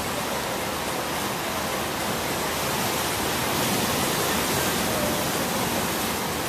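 Ocean surf breaking and washing among rocks, a steady rushing hiss that swells a little as a wave breaks about halfway through.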